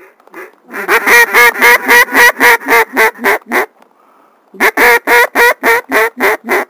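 A duck call blown hard in two runs of rapid, evenly spaced quacks, about four a second. The first run has about a dozen notes; the second, after a short pause, about nine. The calls are made to draw passing ducks in to the decoys.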